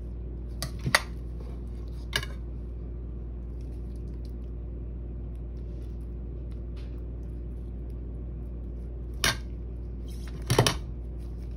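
A metal spoon clinking and scraping against a ceramic plate a few times as risotto is spooned and pushed into place, with sharp clicks near the start and a small cluster near the end, over a steady low background hum.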